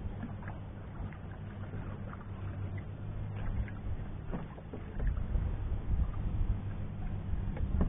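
Water washing along the hull of an Old Town Discovery 133 canoe under way, with a low rumble that gets louder about five seconds in.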